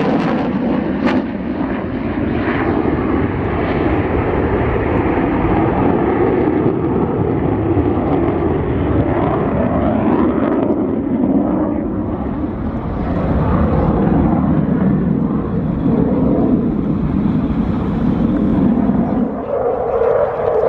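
F-16 Fighting Falcon jet engine running in afterburner during aerobatic manoeuvres, a loud, continuous jet noise. Near the end the deep part of the sound falls away.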